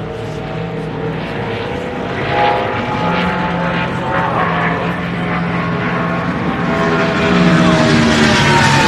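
NASCAR Cup stock cars' V8 engines droning out on the oval, several engine notes at once with pitches slowly rising and falling, growing louder toward the end.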